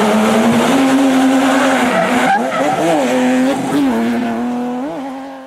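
A car engine held at high revs with tyres squealing, its pitch rising and falling a few times in the middle, then fading out at the end.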